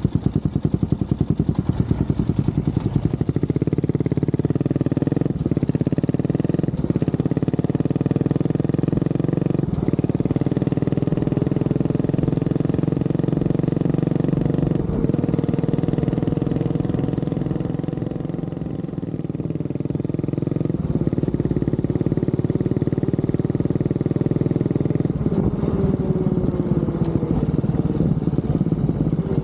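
Honda CB400SS's single-cylinder engine: a slow, separate beat at first, then running steadily under way for most of the time, and slowing back to a low beat near the end with a falling whine.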